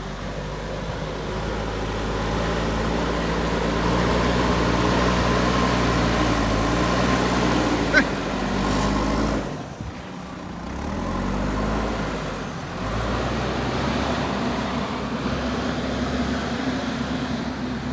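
JCB backhoe loader's diesel engine running under working load, building in speed over the first few seconds. There is a single sharp knock about eight seconds in. The engine drops back near ten seconds, then revs up again.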